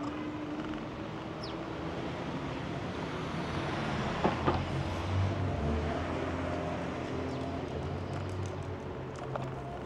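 City street traffic: a motor vehicle engine running steadily in the street. Two sharp knocks come about four seconds in.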